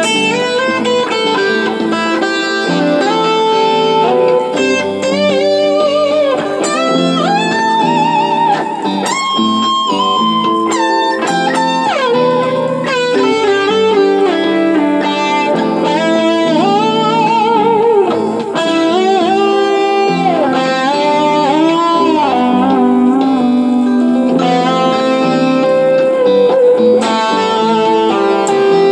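Lead electric guitar played through a Kemper amp profile over a looped guitar backing. The lead is a flowing improvised line of bent notes, with wide vibrato on the held notes and quick runs between them.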